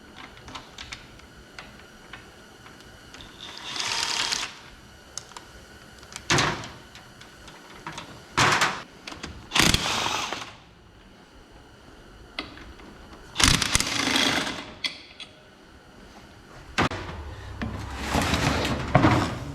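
Power wrench run in about six short bursts, the last one longer, spinning fasteners off an A727 TorqueFlite automatic transmission on the bench.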